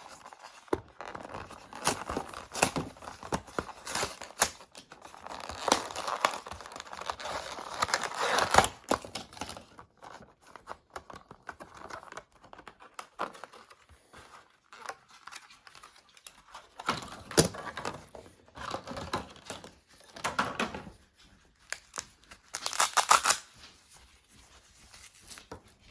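Packaging being torn open and crinkled by hand to get at a new bike tool set, in irregular bursts of rustling with sharp clicks and snaps, busiest in the first nine seconds and again about two thirds of the way through.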